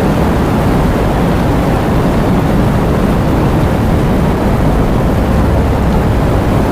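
Heavy rain and wind: a steady, dense rush with a deep rumble underneath.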